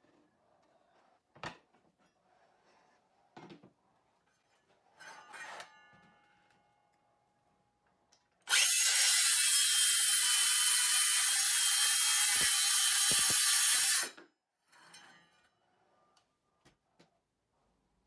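Makita cordless circular saw running and cutting through a laminate-faced particleboard panel for about five seconds, starting about eight seconds in and stopping sharply. Before the cut, a few light clicks and a clatter with a brief metallic ring as the saw and sled are handled.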